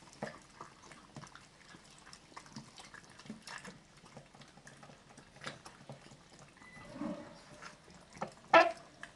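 Dogs eating soft wet food, a run of small irregular wet clicks and smacks of chewing and licking. A single louder sound comes near the end.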